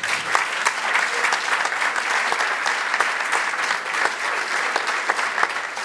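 Audience applauding: dense, steady clapping from a large crowd in a packed hall.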